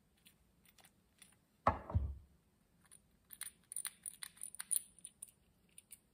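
Small parts of a chainsaw carburetor clicking and ticking as it is taken apart by hand, with one louder thump about two seconds in.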